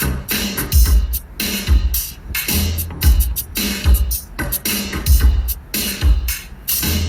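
Background music with a strong electronic drum beat: heavy bass drum hits about twice a second with sharp snare or hi-hat strokes between.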